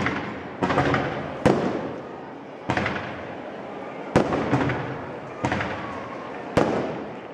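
Aerial fireworks shells bursting: about eight sharp bangs at uneven intervals of half a second to a second and a half, each trailing off in a rolling echo.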